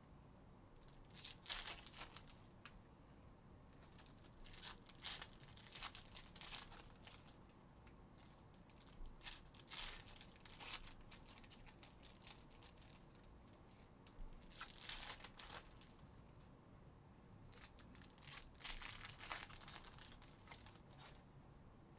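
Foil trading-card pack wrappers being torn open and crinkled by hand, in about five short crackling bursts.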